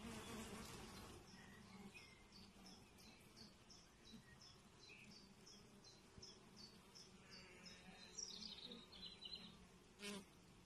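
Faint, steady low hum of honey bees on brood comb. Over it, a bird's short high chirps repeat about three times a second for several seconds, then a quicker twittering phrase, and a single click sounds near the end.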